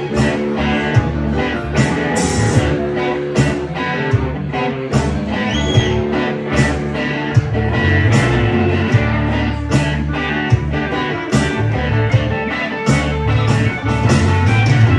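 Band playing a country-rock song: guitars over a steady drum beat, with no singing.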